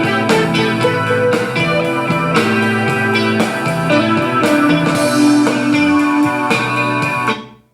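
Guitar-led music with drums played back through a JBL Clip portable Bluetooth speaker for a sound test, dropping quickly to silence near the end.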